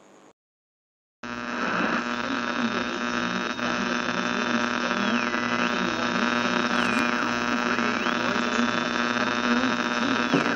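Horror-film drone: after a brief moment of silence, a loud, dense hum and hiss cuts in, with a high tone over it that drops in pitch and climbs back three times.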